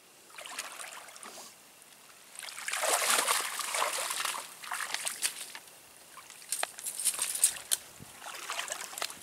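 Water sloshing and splashing in bursts, loudest about three to five seconds in, with sharper splashes and clicks around seven seconds.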